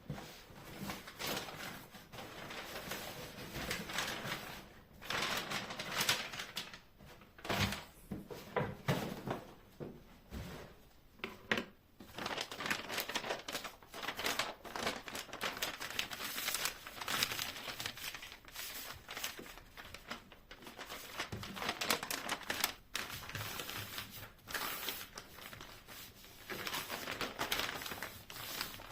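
Hands handling crinkly material, with continuous irregular crinkling and rustling broken by many small clicks and taps.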